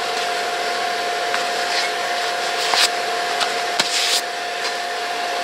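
Gas forge with its blower running steadily: a constant hiss with one steady tone in it. A few brief scraping sounds come near the middle.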